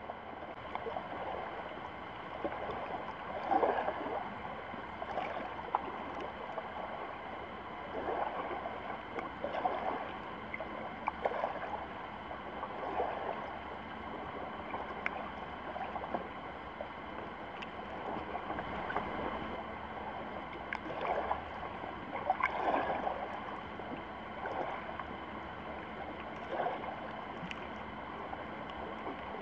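Shallow water lapping and sloshing at a rocky shoreline, heard from just under the surface, with irregular swells every couple of seconds.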